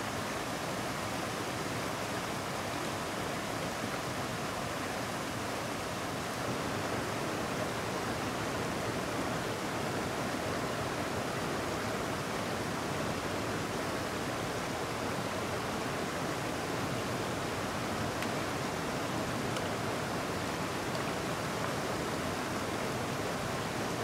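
Shallow river rushing steadily over rocks and a low weir.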